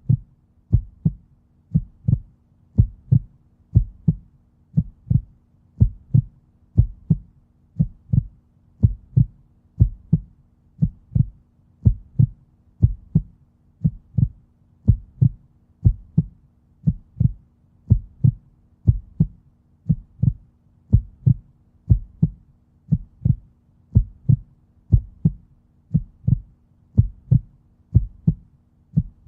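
Heartbeat sound effect: low double thumps (lub-dub) at a steady, even pace of about one beat a second.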